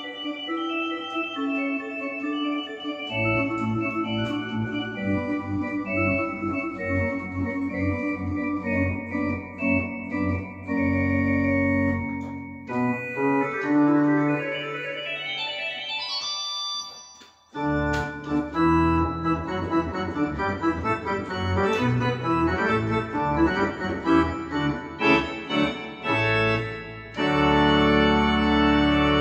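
Organ music: held chords, with deep bass notes coming in about three seconds in. After a brief break a little past halfway, quicker notes move over the chords, and it ends on a loud held chord.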